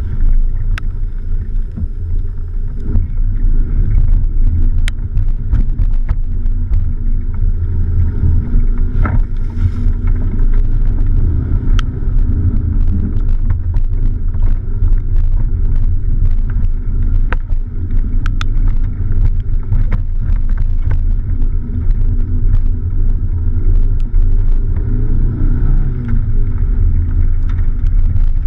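Fiat Panda 4x4's 1.0-litre four-cylinder engine running as the car drives over a rough dirt track, heard from a camera mounted outside the car: a steady low rumble of engine and tyres, with many scattered sharp clicks and ticks.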